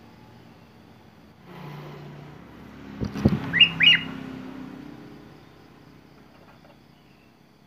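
Sooty-headed bulbul giving two quick rising chirps about three and a half seconds in, just after a couple of low thumps. A low hum rises and fades behind them through the middle.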